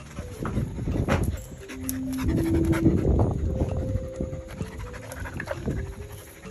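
A dog panting close to the microphone, with background music holding sustained notes behind it.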